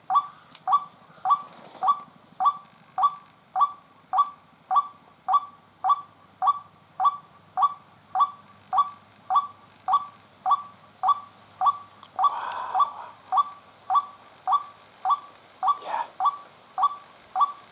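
White-breasted waterhen giving its monotonous repeated call: short, evenly spaced notes at about three a second, with a brief rustle about twelve seconds in.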